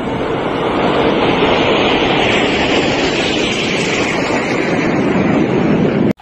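Steady jet noise from a formation of military jets passing overhead in a flypast, its upper pitch falling slightly midway. The noise cuts off suddenly near the end.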